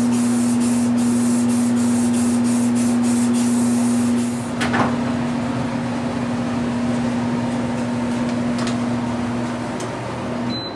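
An aerosol spray can hisses steadily as it sprays a clear overcoat onto a fiberglass ski, then stops about four seconds in, with a single knock just after. A steady low hum runs underneath and stops near the end.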